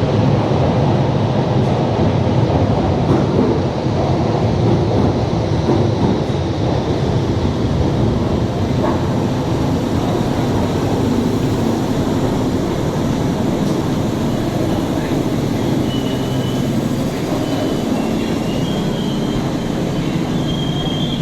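London Underground 1967 Tube Stock train in the platform, a steady loud rumble of the train running in on the rails that eases slightly, with a faint high wheel or brake squeal in the last few seconds.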